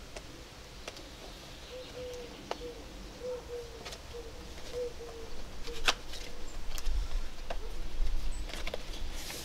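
A dove cooing, a series of short low notes repeated through the first half, over sharp clicks and rustles of a small box being handled. A low rumble and the loudest clicks come in the second half.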